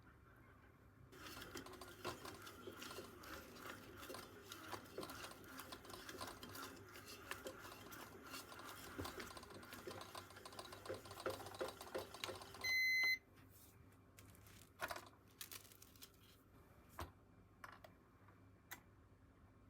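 Rapid, dense clattering for about eleven seconds that cuts off, followed by one loud electronic appliance beep about half a second long, then a few scattered clicks and taps.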